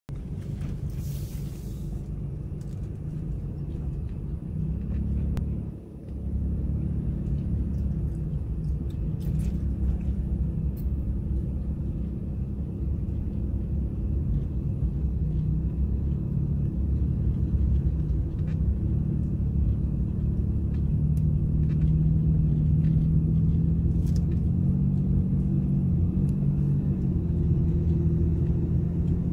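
Low rumble of a vehicle's engine and tyres heard from inside the cabin while driving, the engine note shifting in pitch now and then, with a few faint ticks.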